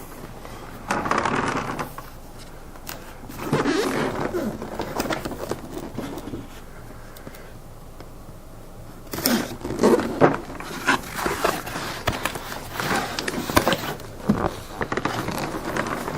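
Cardboard box being opened and handled: bursts of scraping and rustling, with sharp clicks in the second half.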